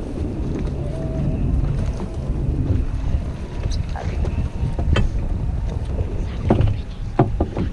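Wind buffeting the microphone and water slapping and rushing along the hull of a small fiberglass boat being towed through chop. There are a few sharper slaps about five seconds in and several more near the end.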